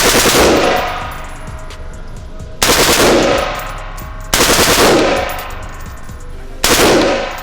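Fully automatic HK rifle firing four short bursts of rapid shots about two seconds apart. Each burst rings on in the echo of an indoor range.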